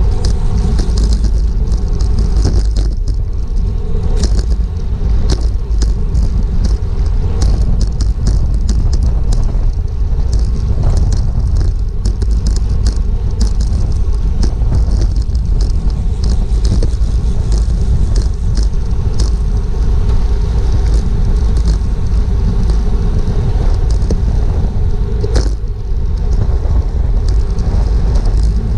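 Road bicycle ridden at race speed, heard through a GoPro: a steady rumble of wind on the microphone and tyre noise, with scattered clicks and ticks and a sharper click near the end.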